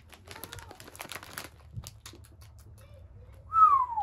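Plastic snack bag of corn sticks crinkling and rustling as it is handled, then near the end a short, loud falling whistle.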